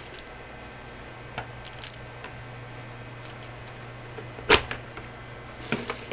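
Plastic parts of a pet drinking fountain being handled: scattered light clicks and taps, with one louder knock about four and a half seconds in, then a quick run of clicks and plastic-wrap rustling near the end.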